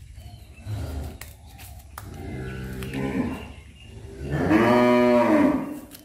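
Dairy cows mooing: a shorter, quieter moo a little past two seconds in, then a longer, louder moo about four seconds in whose pitch rises and then falls.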